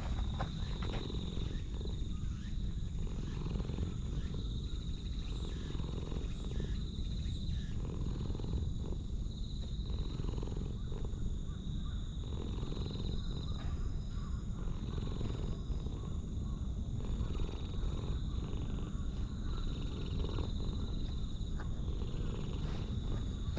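A cat purring steadily.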